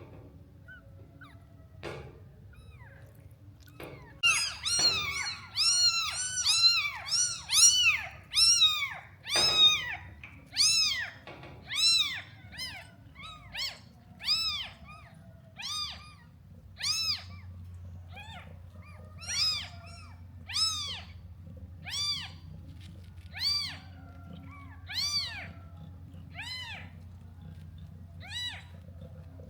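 A cat meowing over and over in short, high-pitched cries that rise and fall in pitch, starting a few seconds in. The cries come thick and overlapping at first, then settle into a steady series of about one every second and a half.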